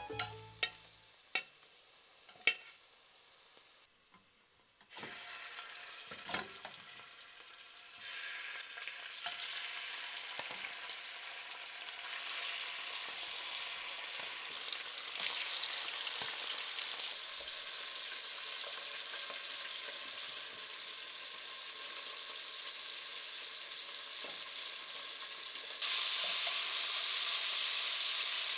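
Bone-in chicken pieces sizzling as they brown in hot olive oil in a stainless steel pot, the sizzle building steadily and stepping up louder near the end. In the first few seconds, sharp metal clinks of tongs against the pot.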